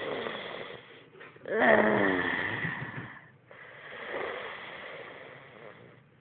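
A small long-haired dog breathing noisily and snore-like, close up, with a falling groan about a second and a half in, then another long breathy exhale.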